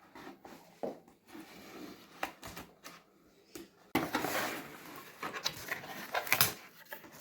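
A cardboard box being opened and its packing handled, with scattered scrapes and taps at first. About four seconds in, a louder, continuous rustling and crackling of the packing material begins.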